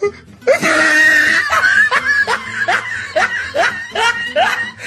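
A young man laughing hard: a run of short, rising 'ha' bursts, about two to three a second.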